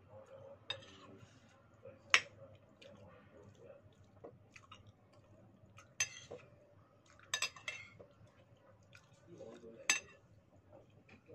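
Metal spoon clinking and scraping against a plate while scooping rice and vegetables, with several sharp clinks a few seconds apart. The loudest is about two seconds in, and a quick run of three comes a little past halfway.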